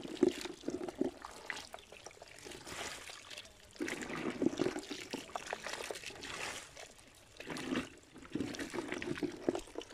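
Small wet fish and water scooped with a cut-off plastic jug and tipped into a woven bamboo basket: three wet pours a few seconds apart, with water trickling between them.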